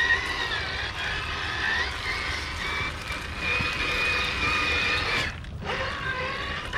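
Whine of a scale RC crawler's electric motor and geared drivetrain, its pitch rising and falling with the throttle; it cuts out briefly about five seconds in and then picks up again.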